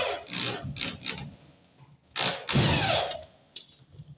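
Corded electric drill driving a black drywall screw into Hardiflex fiber cement board in several short trigger bursts, the motor's pitch falling as each burst ends; the longest and loudest burst comes about two and a half seconds in, as the screw head sinks into the board.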